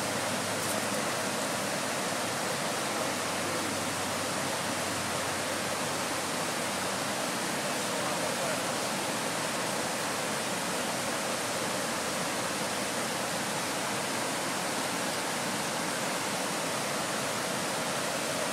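Steady, even rush of flowing river water, an unbroken hiss with no pauses or changes.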